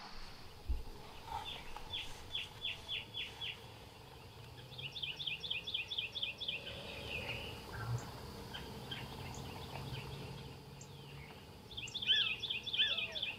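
Songbirds singing: a run of about six quick falling whistled notes, then a stretch of rapid repeated two-part phrases, and a dense burst of chirping near the end.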